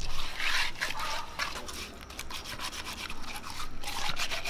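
Hands rubbing and scrubbing whole pearl spot fish in a pot of water: a quick, irregular run of wet rubbing strokes with splashing and dripping.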